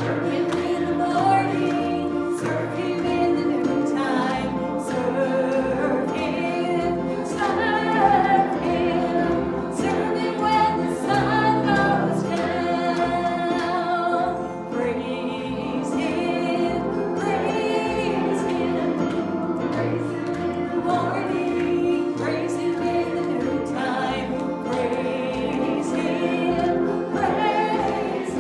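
A group of voices singing a gospel-style song together over instrumental backing with a moving bass line.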